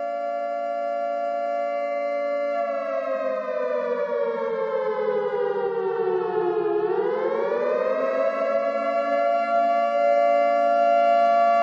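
A siren wailing steadily as a chord of several tones. About two and a half seconds in it starts sagging slowly in pitch, bottoms out near the middle, then climbs back and holds steady.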